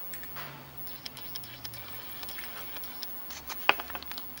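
Small handling sounds of a thin wire and a barrel crimp pin being worked by hand: light ticks and rustles, with one sharper click about three and a half seconds in.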